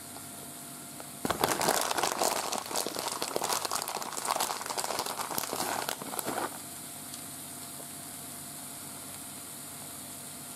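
Plastic bag of shredded Parmesan cheese crinkling as it is handled, starting about a second in and stopping sharply after about five seconds, over a faint steady hum.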